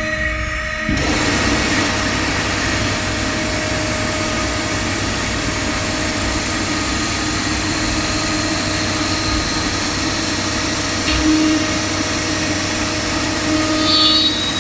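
STD-1325 ATC CNC router running, its spindle giving a steady whine of several held tones, with a rushing noise that comes in about a second in.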